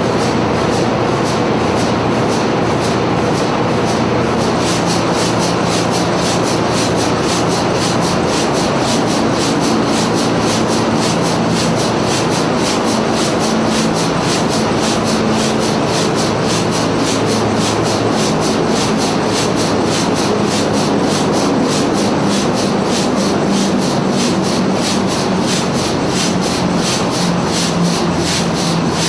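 1932 Burmeister & Wain two-stroke stationary diesel engine running: a loud, steady mechanical clatter with a rapid, even beat.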